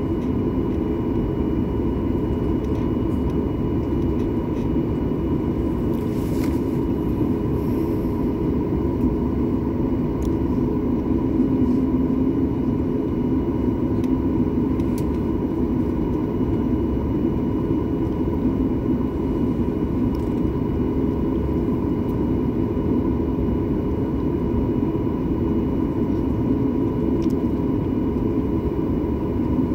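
Airliner cabin noise on the ground: the jet engines running at idle, a steady rumble with a constant hum. A few faint clicks sound over it.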